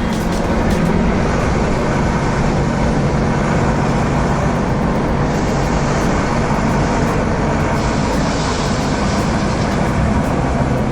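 A heavy vehicle engine running steadily, a dense, even noise strongest in the low end.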